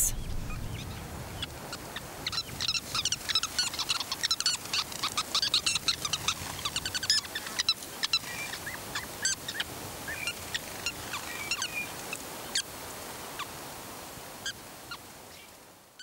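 Sociable weavers chattering: many quick, high chirps, densest in the first half, then growing sparser and fading out near the end.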